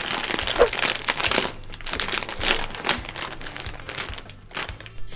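Plastic chip bag crinkling and crackling as it is handled and pulled open at the top seam, busiest in the first few seconds and thinning out toward the end.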